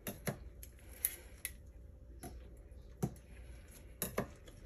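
Thin steel plates from a Honda RT4WD viscous coupler clinking as they are separated from the pack and set down on stacks on a steel workbench: about eight short, light metallic clicks at uneven intervals.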